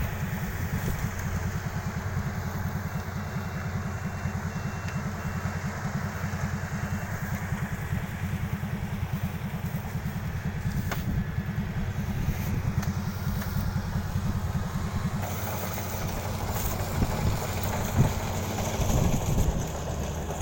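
Kubota DC-35 combine harvester's diesel engine running steadily at a constant speed.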